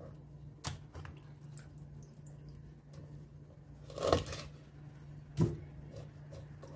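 Kitchen knife cutting and scoring a whole mercan (common pandora) on a wooden cutting board: light slicing and scraping with a few clicks, a crunch about four seconds in and a sharp knock of the blade on the board about a second later.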